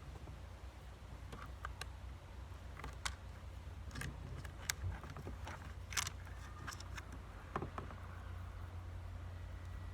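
Scattered light clicks and knocks of hand tools and small plastic and metal parts being handled during disassembly, with a few sharper taps, over a steady low hum.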